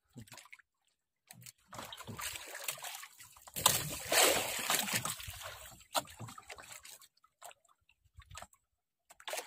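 Seawater sloshing and splashing against the hull of a small outrigger boat, in irregular surges that are loudest about four seconds in.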